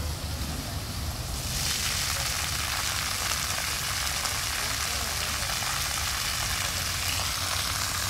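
Fountain water jets come on about a second and a half in, and their spray hisses and splashes steadily into the pool. A low rumble runs underneath.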